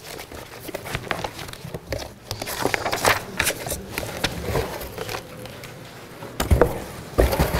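Handling noise from a stack of paper notes: rustling and shuffling with scattered small clicks, and a few low thumps near the end.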